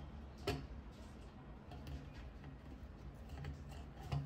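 Light clicks and taps of a fashion doll being handled and fitted onto its black doll stand, with two sharper clicks about half a second in and near the end, over a low room hum.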